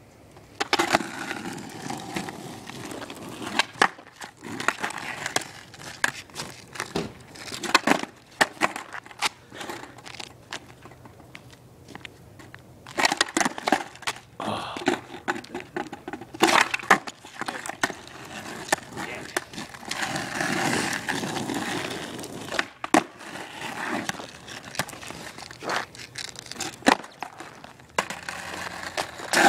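Skateboard rolling over rough asphalt with a gritty hiss from the wheels, broken again and again by sharp wooden clacks of the board slapping the ground.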